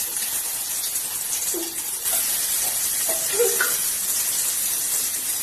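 Oil sizzling steadily in a pan as chicken, onion and spices fry.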